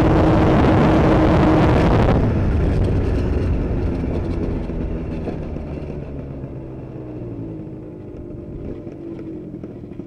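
Two-stroke engine of an Aprilia SR 125 scooter with a Malossi 172 cc kit, running steadily while riding. About two seconds in, the sound suddenly turns duller and then gradually fades away.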